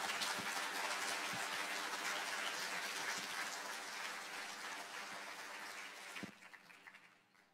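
Congregation applauding: many hands clapping in a dense, steady patter that fades out about six seconds in.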